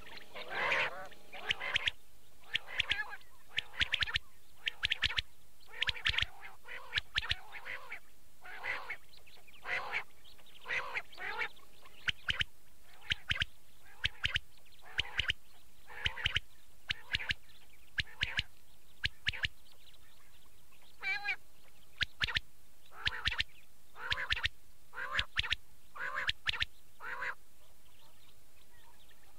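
Quail (batair) calling over and over in short notes, one or two a second, with a pause of about two seconds roughly two-thirds through, over a steady background hiss. It is a recorded call of the kind played to lure quail when hunting.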